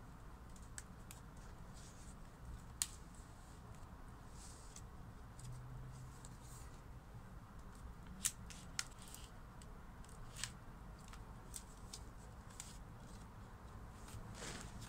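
Stiff cardboard pages and pull-tabs of a children's board book handled by hand: scattered sharp clicks and light paper rustles over faint room noise.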